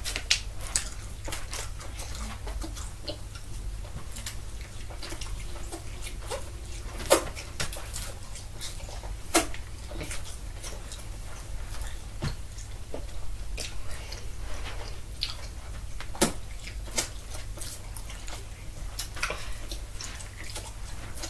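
Irregular small clicks and smacks, a few of them sharper, of two children chewing and sucking in long fruit roll-up strips, over a steady low hum.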